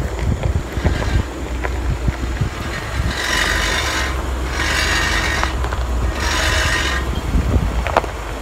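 Rubbing and scraping sounds: scattered small clicks, then three hissy scrapes of under a second each in the middle, over a steady low rumble.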